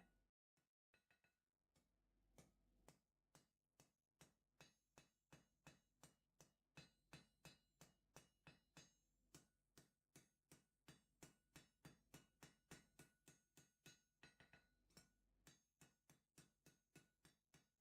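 Faint, steady hand-hammer blows on steel at the anvil, about two to three a second, each with a short metallic ring. This is a blacksmith forging a chisel blank. The blows begin about two seconds in, after a moment of near quiet.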